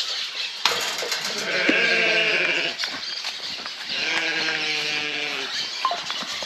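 Katahdin sheep bleating loudly for their feed: two long, wavering bleats, each about two seconds, the second starting about four seconds in.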